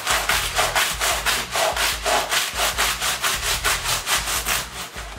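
Large rusty hand saw cutting through a cardboard box of dry spaghetti, in fast back-and-forth strokes of about four a second.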